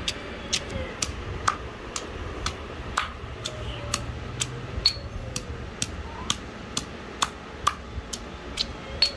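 Sharp kitchen-utensil clicks at an even pace of about two a second, over a low steady hum.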